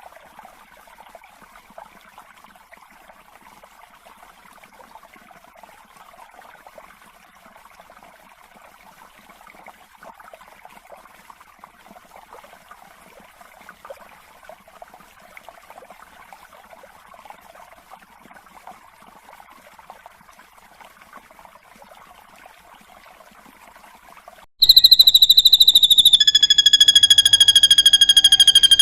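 Faint, continuous soft chattering of a drongo tutor recording. About 25 s in, a loud, long, high whistled tone cuts in and holds, falling slightly in pitch.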